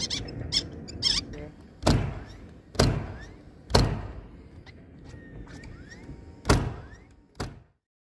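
Loud thuds on the plywood roof deck: four heavy knocks about a second apart with one more later on, and a few lighter knocks between them.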